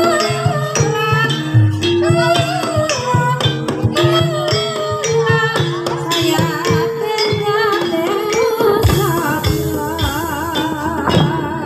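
Live Javanese gamelan music accompanying an ebeg dance. Metallophones play a stepped melody over drum strokes, and a female singer's wavering voice rises above them.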